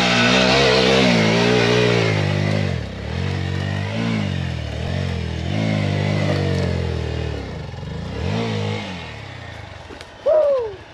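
Single-cylinder four-stroke Hero Xpulse 200 engine revving hard under load on a steep uphill climb, its pitch rising and dropping several times as the throttle is worked. A short, loud, falling sound comes about ten seconds in.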